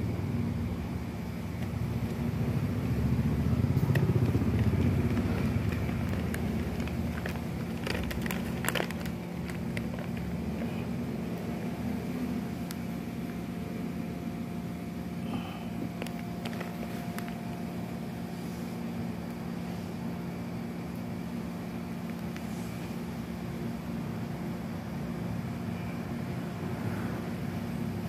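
Steady low engine hum of nearby traffic, swelling louder about four seconds in, with a few faint clicks about eight seconds in.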